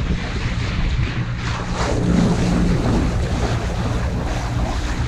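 Wind buffeting the microphone aboard a moving sailboat, with water rushing along the hull and a steady low hum underneath.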